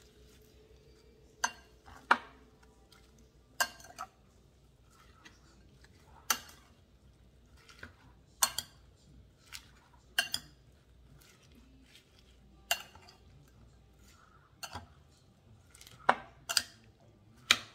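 Spoon stirring and tossing minced chicken larb in a glass bowl, clinking sharply against the glass at irregular moments, about once every second or two.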